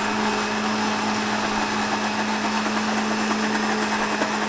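Countertop jug blender running steadily on a thick mix of chopped hazelnuts, cocoa, melted chocolate, oil and soy milk, its motor holding one even hum.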